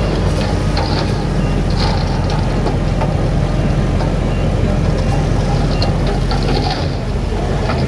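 Heavy diesel earthmoving machinery running steadily, with short metallic clanks and squeaks scattered through.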